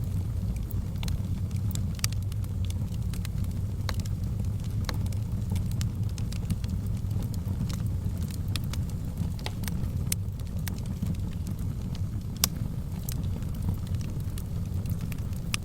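Fire crackling in a fireplace: scattered sharp pops over a steady low rumble, with one louder pop about twelve seconds in.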